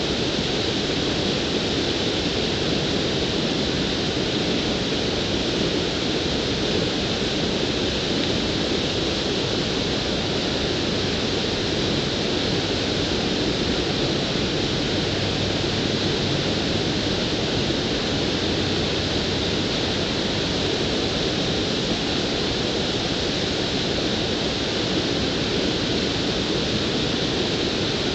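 Steady, even rush of water spilling over a low concrete dam.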